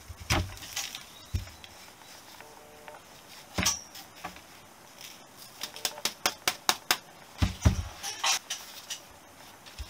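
Metal parts of a Honda XL250S rear brake panel and its cam lever being handled and set down: a few separate knocks, then a quick run of sharp clicks about halfway through, and two more knocks near the end.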